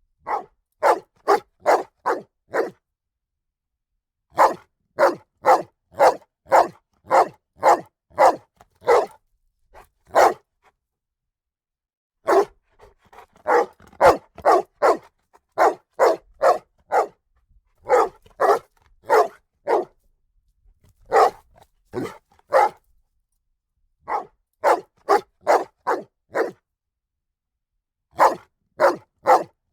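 A dog barking in rapid volleys of about three barks a second, with silent pauses of a second or two between volleys.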